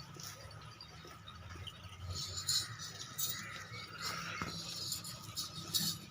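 Faint scattered clinks, a few brief taps over a low steady hum.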